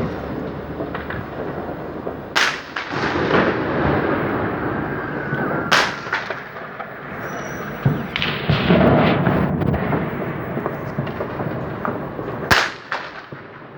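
Fireworks: three loud sharp bangs of exploding shells, about two seconds in, near six seconds and near the end, over continuous crackling and popping from more fireworks in the distance.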